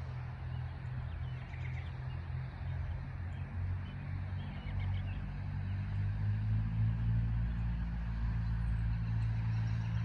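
A steady low engine drone that grows louder about halfway through, with a few faint bird chirps about two seconds in.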